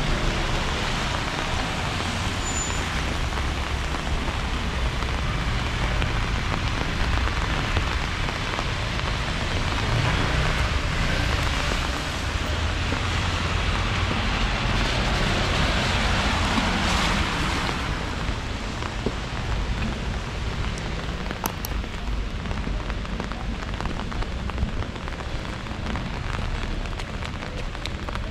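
Steady rain falling, an even hiss with a low rumble underneath. It eases a little about two-thirds of the way through, with a few sharp ticks soon after.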